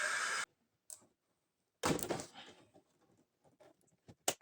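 Hot-air blower running with a steady rush, switched off about half a second in. Then a knock and a few light clicks as parts are handled.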